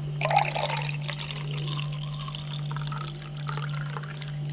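Home-made herbal cough syrup being poured, splashing and trickling, over a steady low hum.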